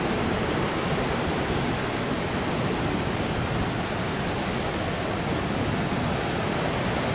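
Ocean surf breaking, a steady, even rushing noise.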